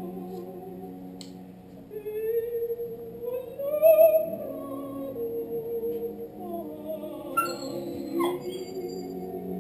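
Recorded opera aria: a female singer holds long notes over accompaniment, swelling to a loud high note about four seconds in. Near the end a Scottish terrier joins in with a short falling howl.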